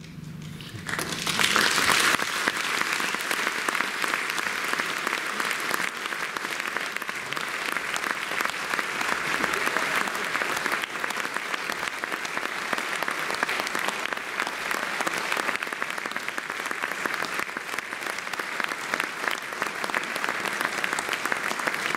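Concert audience applauding, the clapping breaking out about a second in and continuing steadily.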